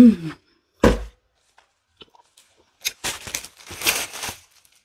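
A brief hum from a full mouth, a sharp thump about a second in, then a paper tissue crumpled and rustled in the hands for about a second and a half near the end.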